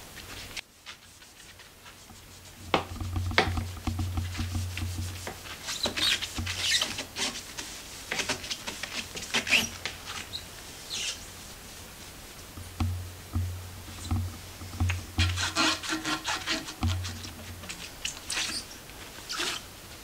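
Damp cloth in a rubber-gloved hand rubbing along gloss-painted wooden banister spindles, in irregular runs of wiping strokes. The strokes start about three seconds in and pause briefly midway.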